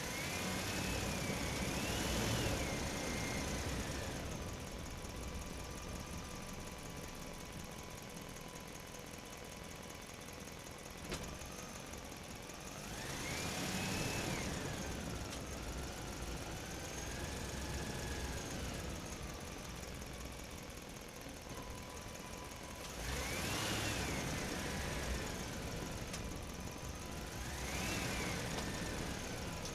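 A motor running, its whine rising and falling in pitch in four swells over a steady rumble, with a thin steady high tone underneath.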